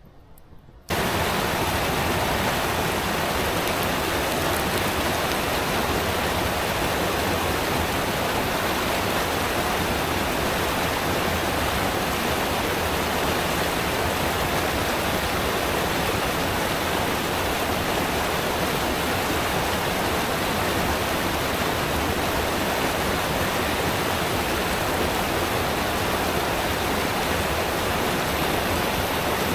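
Mountain stream rushing over rocks, a loud steady rush of water that cuts in abruptly about a second in.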